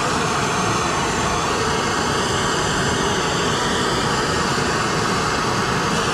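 Handheld gas torch burning with a steady roar of flame. It is heating the steering knuckle's hub bore so the new wheel bearing will press in more easily.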